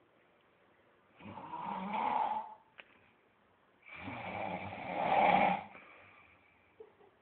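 A man snoring in his sleep: two long snores, one about a second in and a louder, longer one about four seconds in, with a short click between them.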